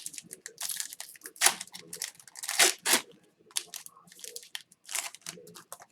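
A foil trading-card pack wrapper crinkling and tearing as it is pulled open, in a string of irregular crackles.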